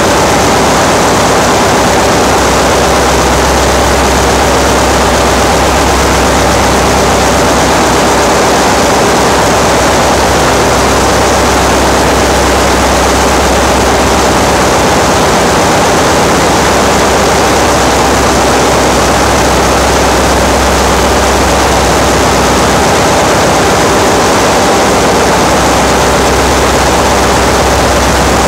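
Loud, steady machinery noise of a ship's engine room, a dense even din over a constant low hum.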